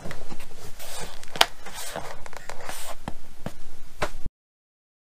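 Close rustling handling noise with a few sharp clicks, cutting off abruptly about four seconds in.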